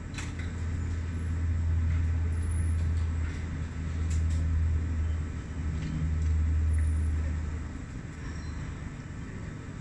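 A low, steady engine rumble that swells over the first second or two, holds for several seconds and fades away near the end, with a few faint hisses above it.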